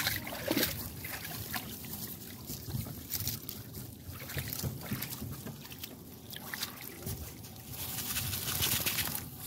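A shallow stream trickling, with scattered short rustles and knocks; the water noise grows louder and hissier about eight seconds in.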